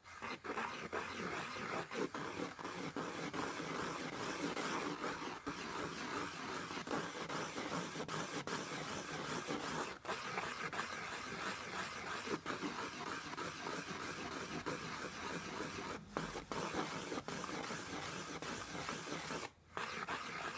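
Coloured pencil scratching on textured paper in quick circular strokes as circles are drawn. There are brief breaks where the pencil lifts, about ten seconds in, again around sixteen seconds and near the end.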